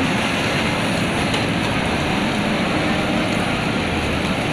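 JCB backhoe loader's diesel engine running steadily as it works its backhoe arm down into the channel.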